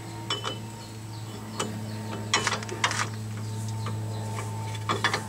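Scattered metallic clinks and knocks of hand tools and suspension parts being handled, a few sharp hits spread irregularly over a steady low hum.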